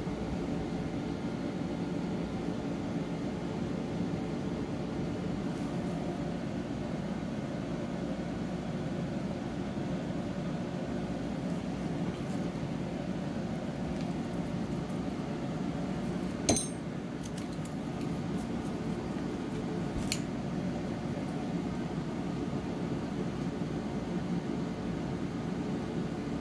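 Steady low room hum, with a sharp click a little past halfway and a fainter click a few seconds later.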